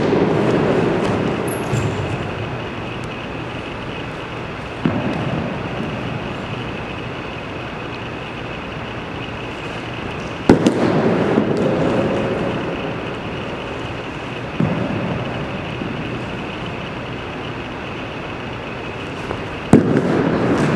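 Baseballs smacking into a catcher's gear as he blocks them on his knees: three sharp hits about ten seconds apart, each ringing in the hard-walled gym, with fainter knocks between them over a steady background hiss.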